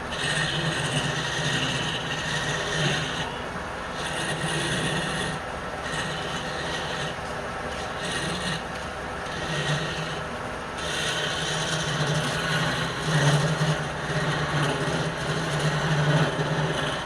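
Wood lathe running with a steady motor hum, while a turning tool scrapes the spinning wood in on-and-off passes every second or few.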